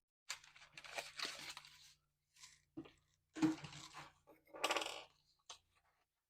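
Packaging and a metal flex plate being handled as they come out of the box: several short bursts of crinkling and rustling with light clinks.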